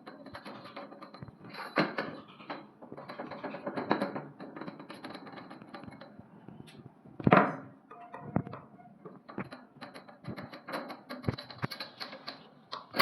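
Irregular tapping, clicking and scraping of hard objects being handled, with one loud knock about seven seconds in and a few smaller sharp knocks after it.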